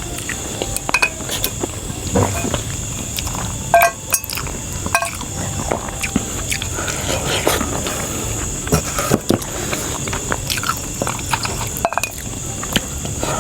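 Eating utensils clinking and scraping against plates and bowls during a meal: scattered sharp clinks, a few ringing briefly, at irregular intervals.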